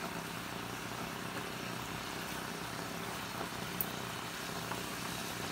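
Steady background hiss with a low hum, and a single faint click about four seconds in.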